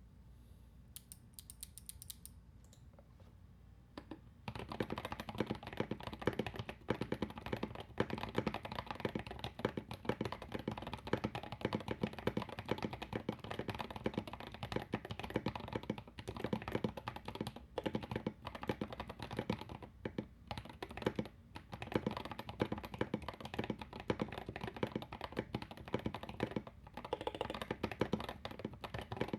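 Fast continuous typing on an Akko MOD001 custom mechanical keyboard with lubed Gazzew Boba U4T tactile switches, an aluminium plate, foam and tape mods, and doubleshot ABS keycaps. The keystrokes give a deep, dense clacking likened to mixing cement. The typing starts in earnest about four seconds in, after a few faint clicks.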